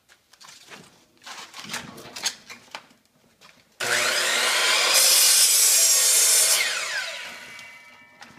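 Sliding compound miter saw starting up about four seconds in and cutting a shallow groove into a wooden block, then the blade spinning down with a falling whine after the cut. Before it, a few light knocks and handling sounds as the wood is set in place.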